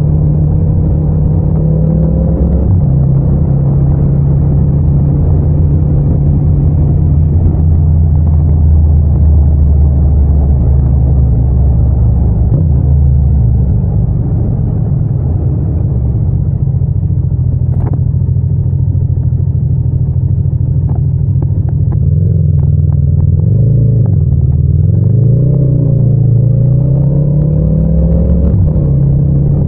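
Yamaha MT-07's parallel-twin engine running at a steady cruise with road noise. The engine note drops about two and a half seconds in. Near the end the revs fall and climb again, with a few short sharp ticks shortly before.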